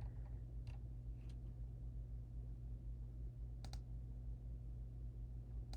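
A few isolated computer clicks, well spaced, over a steady low electrical hum.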